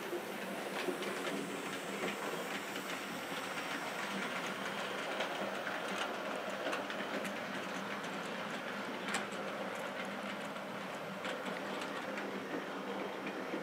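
Model train running along the track, its wheels clicking irregularly over the rails above a steady low hum.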